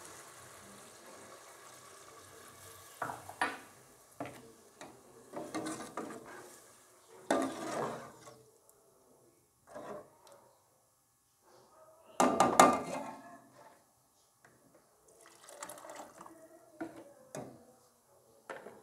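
Meat stock poured steadily into a steel pot of fried meat and tomatoes for the first few seconds, then a slotted metal spatula stirring and knocking against the pot in scattered strokes, the loudest about twelve seconds in.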